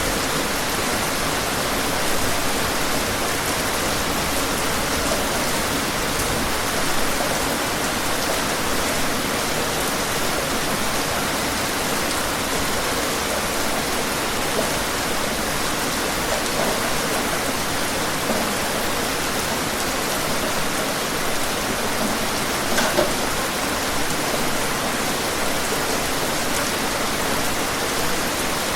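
Steady rain falling outdoors: an even hiss of rainfall with a few louder drops tapping now and then.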